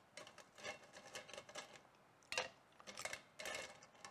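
Ice cubes clinking and rattling against each other and stainless steel as they are picked by hand from an ice bucket for a cocktail shaker: a string of small, faint clicks with a sharper clink a little over two seconds in.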